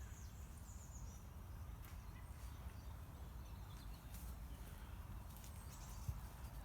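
Quiet woodland ambience: faint birds chirping, mostly in the first second, over a low steady rumble of wind on the microphone, with a few light rustles and ticks.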